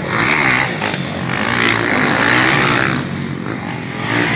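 Several motocross bikes racing past with their engines revving hard, the engine notes rising and falling as the riders work the throttle.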